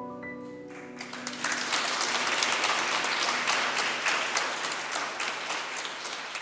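The accompaniment's last held chord dies away, then the audience starts applauding about a second in. The clapping is dense and steady and begins to thin near the end.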